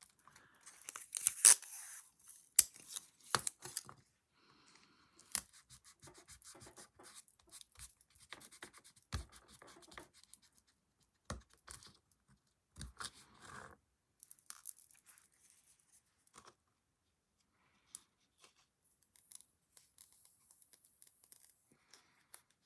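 Adhesive tape pulled off the roll and torn, with a loud rasp about a second in, followed by scattered light clicks, taps and scratches of small handwork that thin out over the last several seconds.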